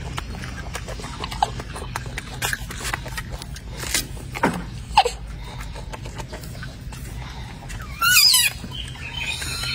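Golden snub-nosed monkey calls: two short, falling, whistle-like calls about four and five seconds in, then a loud warbling squeal about eight seconds in, over faint scattered clicks.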